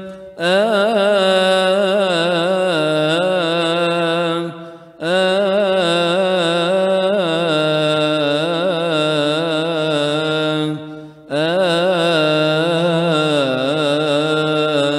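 A solo male voice chanting long melismatic phrases in the Coptic Orthodox Gospel style. The line is sung in three long breaths, with short breaks about five and eleven seconds in.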